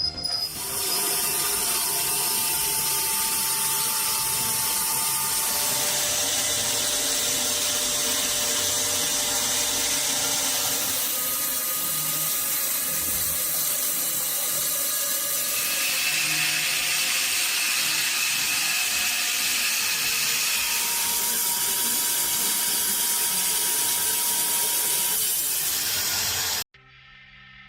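Powered wood-processing machinery running under load, a steady loud mechanical din with a strong hiss and whining tones that shift every few seconds. It cuts off suddenly near the end.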